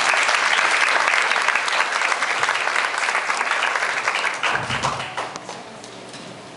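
Audience applauding, loud at first and dying away about five seconds in.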